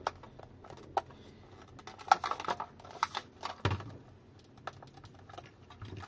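Hard plastic casing of an e-bike battery pack being gripped and worked at by hand to separate it: scattered sharp plastic clicks and creaks, with a quick cluster of clicks about two seconds in and a duller knock a little later.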